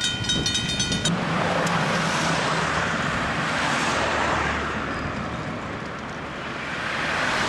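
Road traffic noise: cars going by in a steady rush that eases off and swells again near the end. A piece of music cuts off about a second in.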